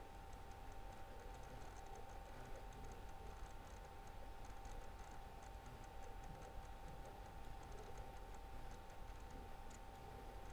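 Faint, quick light ticking of writing strokes as button labels are written out, over a steady faint electrical hum.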